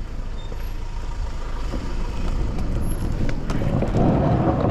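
Steady motor-vehicle rumble, with road or traffic noise, growing louder about three and a half seconds in.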